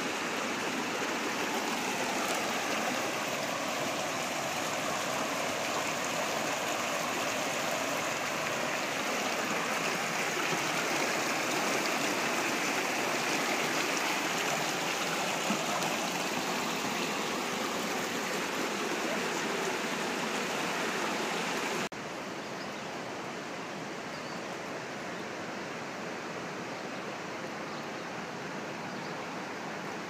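Rushing water of a rocky river's rapids, a steady even rush. About 22 s in it cuts to a quieter, duller flow.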